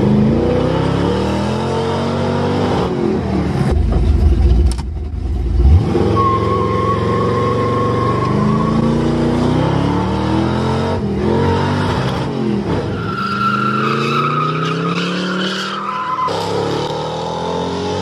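Car engine accelerating hard through the gears: its pitch climbs and drops back at each shift, again and again. A steady high whine or squeal comes in twice along the way.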